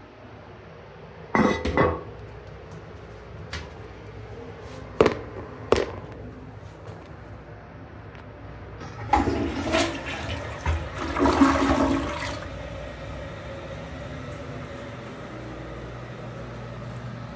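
AquaSource Henshaw toilet flushing: a loud rush of water about nine seconds in, lasting some three seconds, then quieter steady running water. Several sharp knocks and clatters come before it, in the first six seconds.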